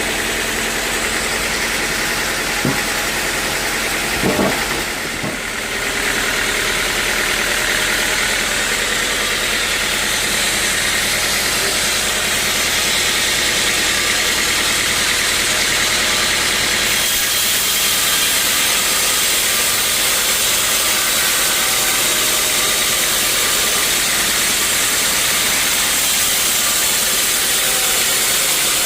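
Sawmill machinery running steadily: an engine's drone under a strong hiss, with a couple of short knocks about three and four seconds in.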